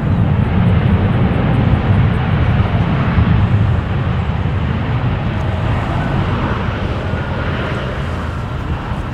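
Boeing 787-9's Rolls-Royce Trent 1000 jet engines as the airliner rolls out along the runway after touchdown: a loud, deep, steady rumble with a broad hiss over it, loudest in the first few seconds and then slowly fading.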